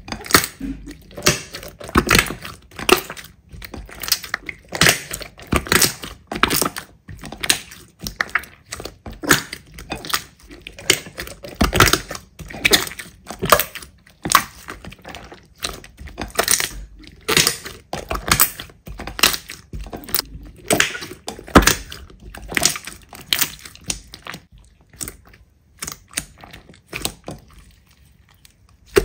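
Slime being squeezed, pressed and poked by hands, giving a dense run of crackling, popping clicks several times a second. The clicks thin out and grow quieter near the end.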